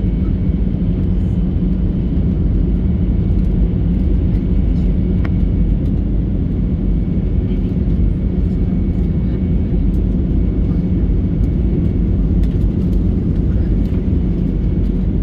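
Steady engine and airflow rumble heard from inside the cabin of an Airbus A320neo airliner, with a faint steady high tone running through it.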